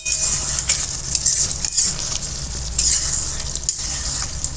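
Chicken curry with fried potatoes sizzling in an aluminium pot while a metal spoon stirs it, with a few short scrapes and clinks of the spoon against the pot.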